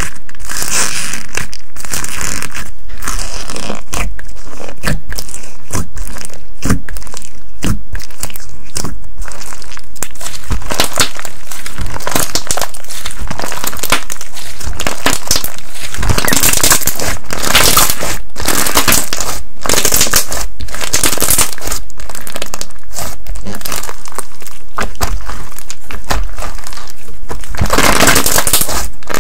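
Hands squishing, stretching and folding Kokomo's 'Big Milk Mini Melts' slime, giving a dense run of crackling and crunchy clicks that gets busier about halfway through and again near the end.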